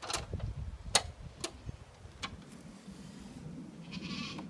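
A few sharp clicks or knocks in the first couple of seconds, over a low rumble, then a short animal bleat near the end.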